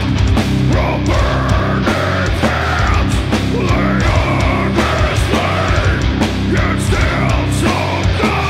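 Doom metal band playing live: heavily distorted electric guitars and bass on a low riff, with drums and vocals over the top.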